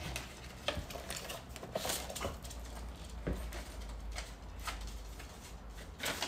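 Scattered light clicks and rustles as a card and a folded paper are handled and slipped into a fanny pack, with the loudest click near the end.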